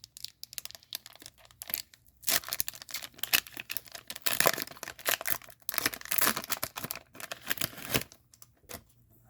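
Plastic trading-card pack wrapper crinkling and tearing as it is handled, in dense crackly bursts from about two seconds in to about eight seconds in.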